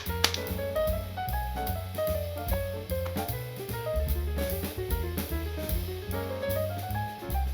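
Background jazz music with drum kit, bass and melody, at a steady beat.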